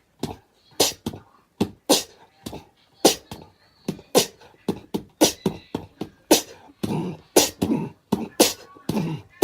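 Beatbox-style percussion: a steady rhythm of sharp, clicky hits, roughly two a second, with stronger accents about once a second.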